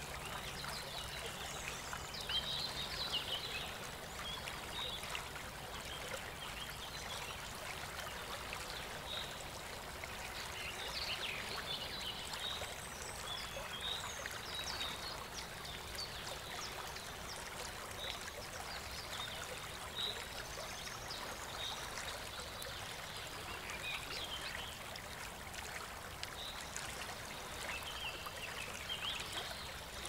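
Small birdbath fountain trickling steadily, with irregular light splashes as a California scrub jay bathes in the shallow water.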